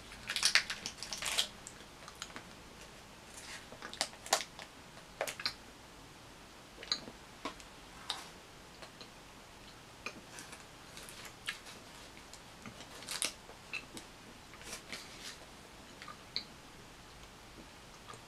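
Faint crinkling and rustling of a candy wrapper, packaging for peppermint cocoa chews being handled and opened, in short bursts with scattered small clicks, busiest in the first second and a half.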